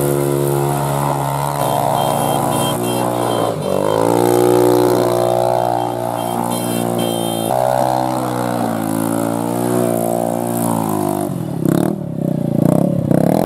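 Engine of a small Polaris youth ATV running and being revved, its pitch sliding up and down as the throttle is worked, with a rougher, uneven stretch near the end.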